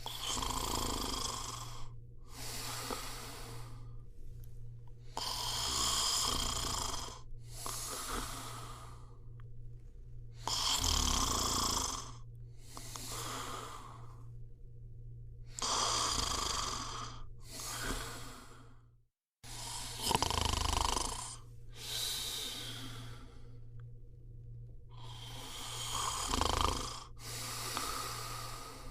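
A person snoring: rasping breaths in and out, each about a second long, coming in pairs with short pauses between, over a steady low hum. The sound cuts out completely for a moment about two-thirds of the way through.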